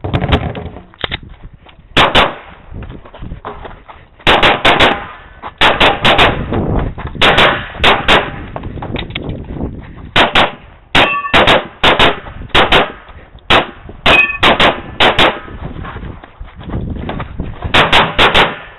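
A .40-calibre 2011-pattern pistol firing rapid shots, mostly in close pairs, with short pauses between strings of fire.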